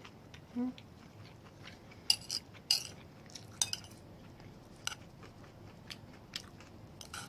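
Cutlery clinking and tapping on a plate while someone chews a mouthful of beef and rice, with small wet mouth clicks between. The sharpest clinks come about two, two and a half and three and a half seconds in.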